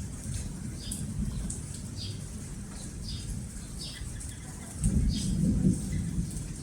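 Birds calling in a run of short, high, falling chirps about twice a second, over a steady low rumble that swells about five seconds in.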